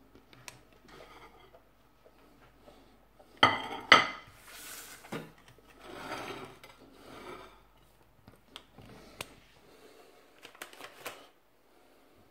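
Plate and utensils clattering on a kitchen countertop. There are two sharp, ringing clinks about three and a half seconds in, then softer scraping and a few light taps as the plate is handled.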